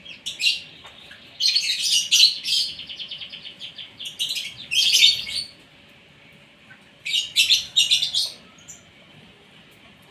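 Asian pied starling (jalak suren) singing in four loud bursts of chattering, whistled phrases with pauses between them; the longest burst runs into a fast series of repeated notes.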